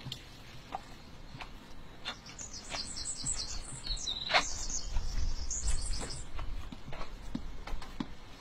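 Small birds chirping rapidly for a few seconds in the middle, over scattered light clicks and rustles, with a low rumble underneath.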